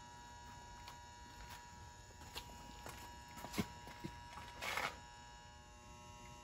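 Faint, steady electrical hum with a few light clicks and a brief rustle a little after the middle.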